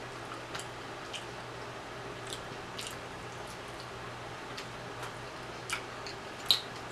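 Quiet eating sounds from pulling apart and eating pieces of rotisserie chicken by hand: scattered small wet clicks and lip smacks, the sharpest about six and a half seconds in, over a faint steady hum.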